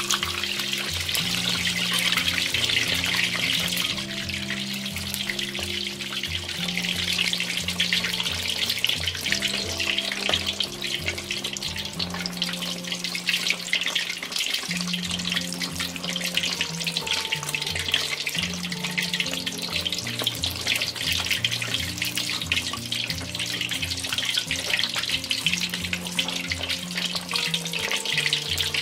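Slab of pork belly deep-frying in hot oil in a wok, a steady, dense crackling sizzle. Background music with held low notes plays under it.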